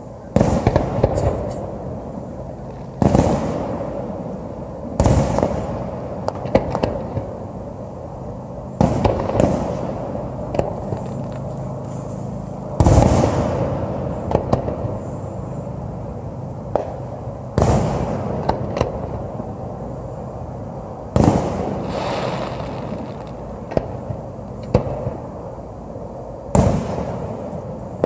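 Aerial fireworks shells bursting in a city display: a series of loud booms a few seconds apart, each trailing off in a rolling echo, with smaller pops and crackles between.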